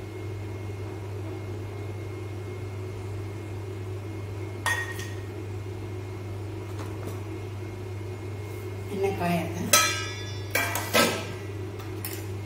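Stainless steel pots and utensils clinking: one clink with a short ring about a third of the way in, then a run of ringing metal clatters near the end, over a steady low hum.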